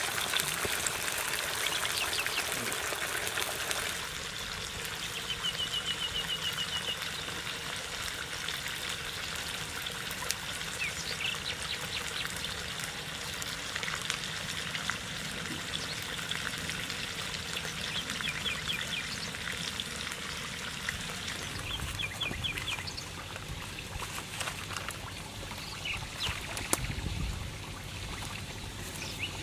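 Whole small fish deep-frying in a wok of hot oil, a steady sizzle that is loudest in the first four seconds. Birds chirp in short trills now and then, and there is a single knock near the end.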